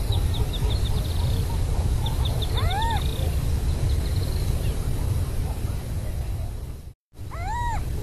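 Western burrowing owl giving two short meow-like calls that rise and fall, one near the middle and one near the end, over a steady low rumble. A fast, high ticking trill runs through the first few seconds. The sound cuts out for an instant just before the second call.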